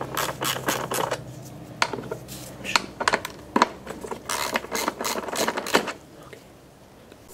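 Irregular metallic clicks and rattles from a small hand tool and bolts as the bolts holding a lawnmower engine's recoil starter housing are slackened off and taken out; the clicking dies down near the end.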